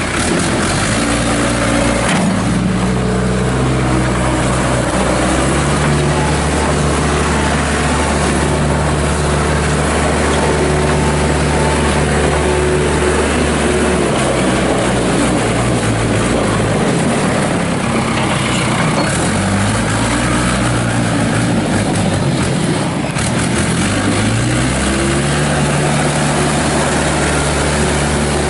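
Cummins 4B four-cylinder diesel of a Case 580 Super E backhoe loader running. Its engine speed steps up, holds high for several seconds, drops back about seventeen seconds in and climbs again near the end.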